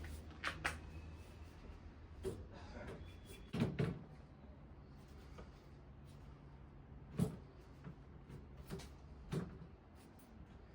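Scattered light knocks and clicks of bicycle parts and tools being handled, about eight in all, with a double knock about three and a half seconds in and a sharp one about seven seconds in.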